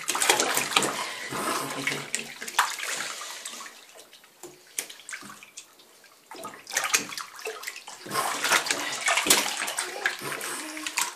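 Water sloshing and splashing in a plastic baby bath as a floating baby moves its arms, in two spells: one at the start lasting a few seconds and another from about eight seconds in, quieter in between.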